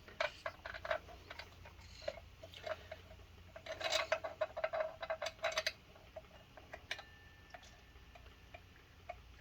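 Light metallic clicks and clinks of tools and engine parts being handled, several with a short ringing note, coming in a quick run from about four to six seconds in and then only a few scattered ticks.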